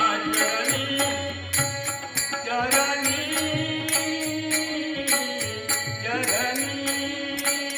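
Marathi devotional abhang (bhajan) being sung with melodic ornaments, accompanied by a low drum and small hand cymbals struck in a steady rhythm.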